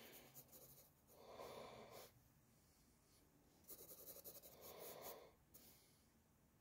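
Faint pencil scratching on sketchbook paper: a graphite pencil hatching in bursts of quick back-and-forth strokes, with a dense run of strokes about four seconds in.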